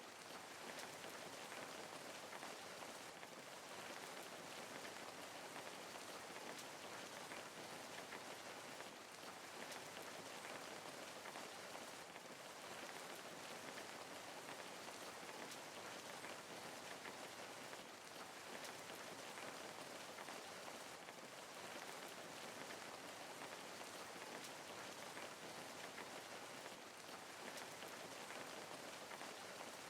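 Steady rain falling: a soft, even hiss flecked with the patter of individual drops.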